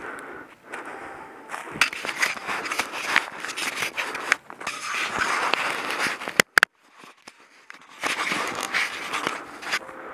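Close scraping and rustling right at the microphone of a body-worn camera as it rubs against clothing and is handled. There are two sharp clicks a little past halfway, then a short quiet gap before the rubbing starts again.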